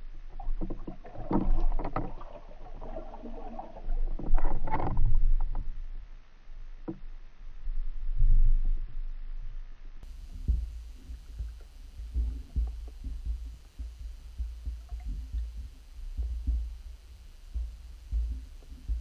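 Muffled underwater sound picked up by an action camera in its waterproof housing: bursts of churning water in the first few seconds as a pike strikes a hanging bait fish, then a steady low rumble with frequent dull thumps.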